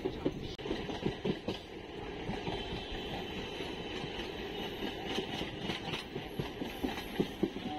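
MEMU electric local train running at speed, heard from inside the coach: a steady rumble of wheels on track, broken by scattered clicks and knocks.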